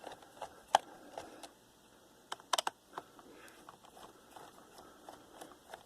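Faint, scattered clicks and taps of a small screwdriver working the screws that hold a laptop's CPU heatsink, with a quick run of three clicks about two and a half seconds in.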